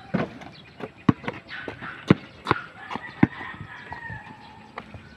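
Basketball bouncing on a concrete street several times as a player dribbles, the loudest bounce about two seconds in. A rooster crows in the background.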